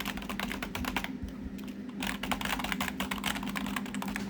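Rapid typing on an old computer keyboard: two runs of fast key clicks, with a short pause about a second in.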